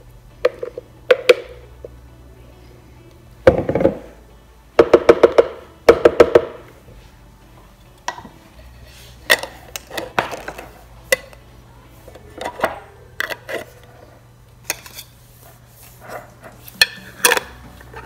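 A metal spoon knocking and scraping against glass jars as thick paste is spooned in, with a cluster of ringing clinks a few seconds in, followed by lighter clicks of metal screw-on lids being set on the glass jars and turned.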